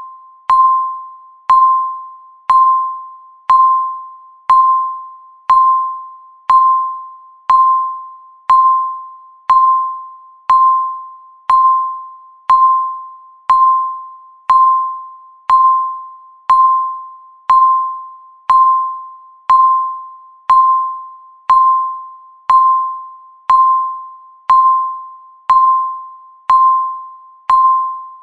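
Countdown timer beep sounding once every second: a short electronic tone at one fixed pitch, struck sharply and fading away within about half a second, each beep marking one second of the count.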